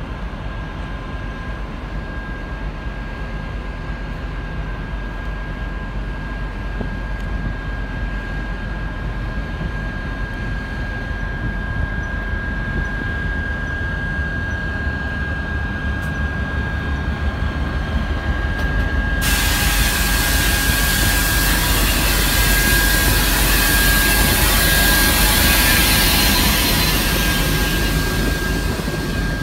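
TEP70BS diesel locomotive's 16-cylinder diesel engine running under a steady high whine as it starts a passenger train and pulls it away. About two-thirds through, a loud hiss sets in abruptly and swells as the locomotive moves past.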